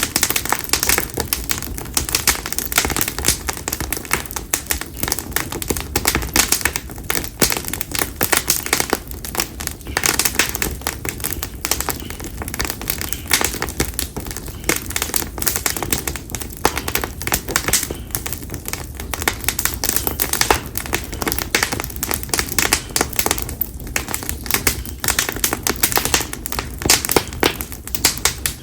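Split konara oak firewood burning in an open campfire, crackling and popping continuously with dense, irregular snaps.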